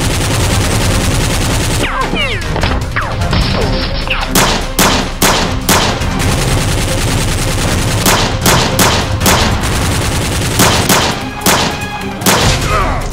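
Gunshot sound effects: a dense rattle of rapid fire for about the first two seconds, then single shots and quick clusters of shots through the rest, over background music.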